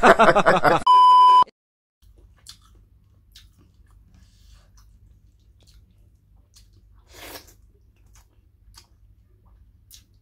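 Laughter that stops just under a second in, cut off by a steady high beep lasting about half a second. After a brief silence, faint mouth and hand sounds of eating rice and pork curry by hand: small smacks and clicks, with one short louder squelch about seven seconds in.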